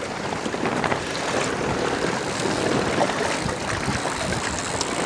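Gale-force wind rushing steadily across the microphone, with choppy waves lapping at the bank.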